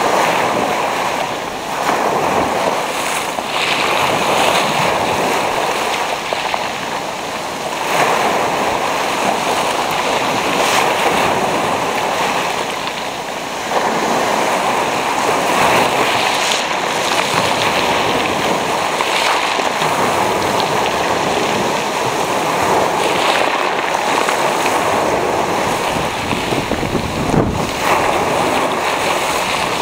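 Sea waves breaking and washing over a pebble beach: a continuous rushing surf that swells louder as new waves come in, clearly about a third of the way through and again near the middle.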